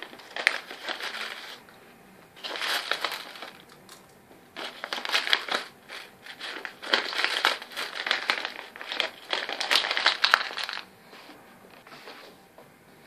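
Plastic Skittles packet crinkling and rustling in several bursts of handling as the sweets are tipped out of it, dying down near the end.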